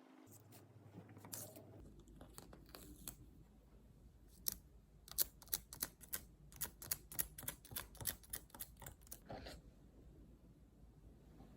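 A run of light, irregular taps and clicks from small hard objects being handled, sparse at first and then coming thick and fast from about four to nine seconds in.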